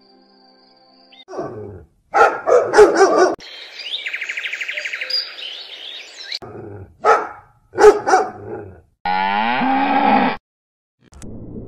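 Cattle mooing: several loud calls, the last a long moo near the end. Between them is a stretch of fast, even pulsing.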